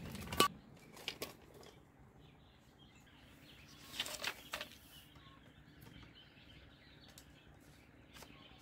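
Dry split bamboo strips clicking and clattering against each other as they are handled and woven into a flat lattice by hand: a few sharp knocks near the start and a short cluster about four seconds in.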